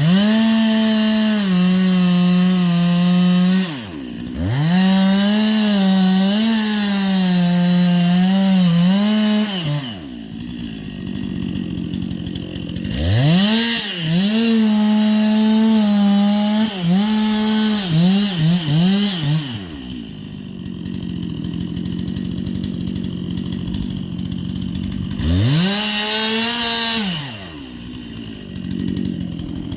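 Stihl two-stroke chainsaw run up to full throttle four times, the high engine note dipping and wavering under load as it cuts into wood, dropping back to idle between runs.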